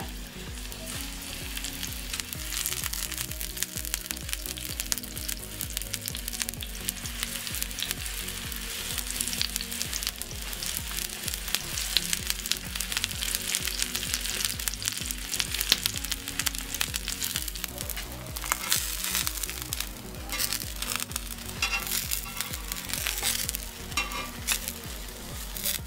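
Eggplant slices frying in hot oil in a cast-iron pan: a steady crackling sizzle with scattered sharp clicks.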